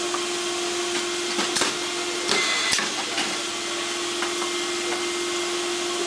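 Vacuum tray seeder running with a steady hum and hiss from its vacuum, dropping pelletized tobacco seeds into plastic seedling trays. A few sharp clacks of plastic trays being handled sound over it, the loudest about two and a half seconds in.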